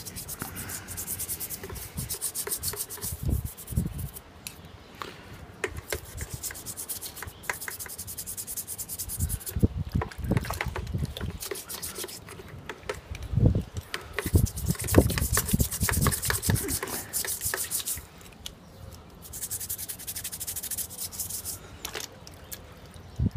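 Toothbrush bristles scrubbing an aluminum relic in a bucket of water, in bouts of fast back-and-forth strokes with short pauses between them. The strokes lift off dirt and corrosion loosened by an oxalic acid soak.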